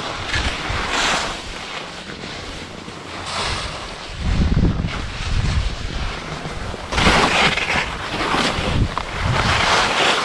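Skis scraping and carving over the snow of a mogul run, in surges of hiss with each turn, with wind buffeting the microphone.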